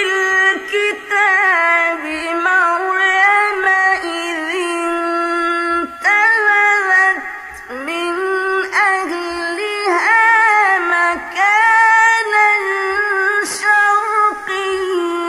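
Music: a high voice singing a melody in long held notes with wavering pitch and slides between them, over a faint low beat.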